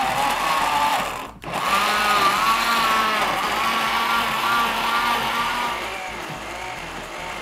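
Countertop electric blender running, churning a thick green vegetable smoothie. The motor cuts out for a moment about a second in, then runs steadily again with a wavering pitch as the mix churns, easing off slightly near the end.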